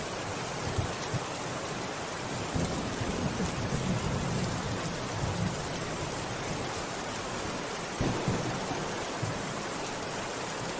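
Steady rain, with a few low rumbles about a third of the way in and again near the end.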